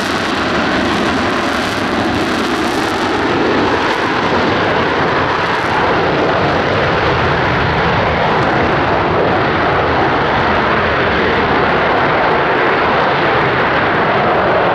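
Loud, steady jet noise from an F-35B Lightning II's Pratt & Whitney F135 engine at high power in a hover. The noise grows a little louder about four seconds in.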